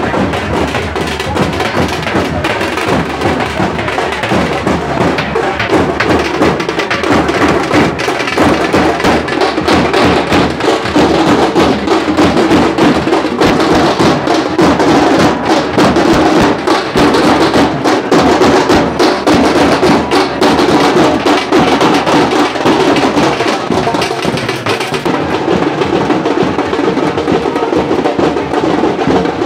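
A group of large white-headed drums beaten with sticks, playing a loud, continuous, dense rhythm of rapid strikes without a break. The highest frequencies drop away about 25 seconds in.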